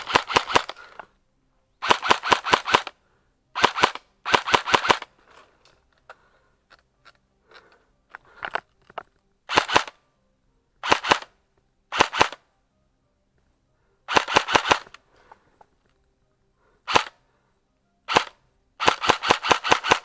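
Airsoft gun firing in short rapid bursts of sharp pops, about a dozen bursts of several shots each with a few single shots among them and brief pauses in between.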